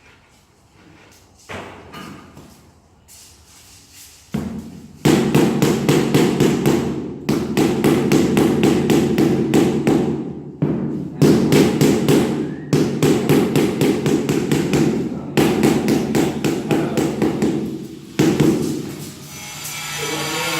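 Rapid, steady hammering taps, several a second, starting about five seconds in and stopping briefly a few times.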